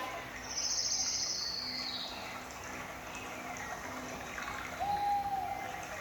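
Recorded nature sounds played back through a speaker: a running river with birds calling. A high, rapid trill comes in the first couple of seconds, and a short whistled note comes near the end.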